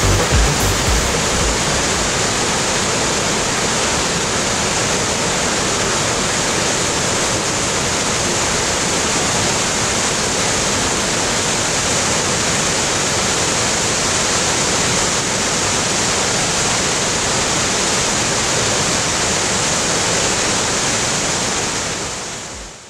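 Waterfall: a steady rush of falling water that fades out near the end.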